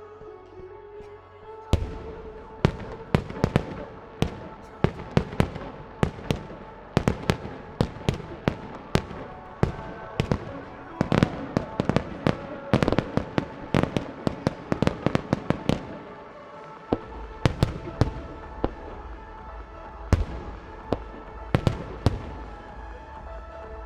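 Aerial fireworks shells bursting in quick succession, dozens of sharp bangs and crackles over the show's accompanying music. The bursts start about two seconds in, ease off briefly around sixteen seconds, then pick up again.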